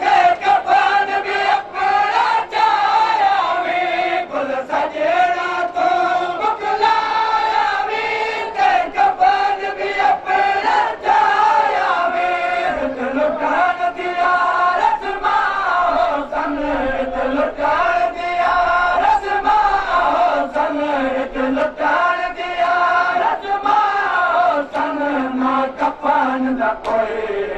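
A group of men chanting a Saraiki noha (Shia lament) in unison, the melody stepping up and down in a repeating phrase, over a steady beat of sharp chest-beating slaps (matam).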